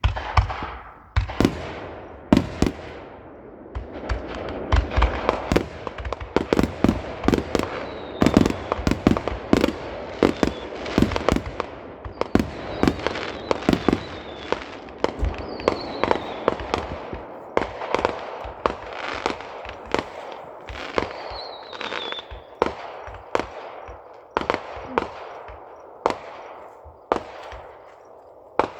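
Aerial fireworks display: a rapid, dense run of booms and sharp bangs from shells bursting one after another, with an echoing rumble between them and a few faint whistles.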